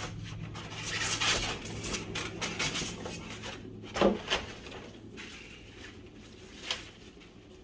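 Floor-lamp parts clattering and rubbing as they are handled and fitted together during assembly, with a sharp knock about four seconds in and a lighter one near the end.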